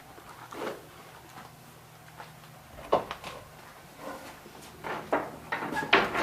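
A few scattered knocks and clunks, one sharp one about halfway through and several close together near the end.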